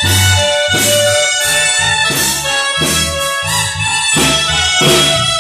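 Live dance band playing: a drum kit keeps a steady beat under a deep bass line, with held melody notes on top.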